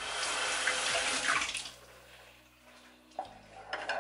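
Water running from a tap for about a second and a half, then shut off.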